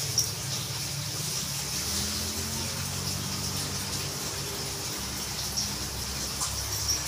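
Steady rushing, water-like noise with a low hum beneath it, and a few short clicks: one just after the start and several near the end.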